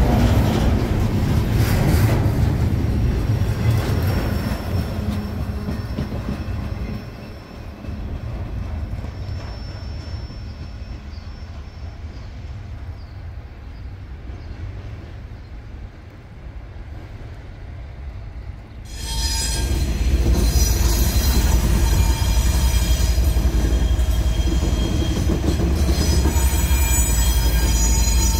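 Diesel-hauled train running on the rails: a low rumble that fades over the first several seconds to a quieter stretch. About two-thirds of the way through it turns abruptly loud again, with heavy rumble and high-pitched squealing of steel wheels against the rail.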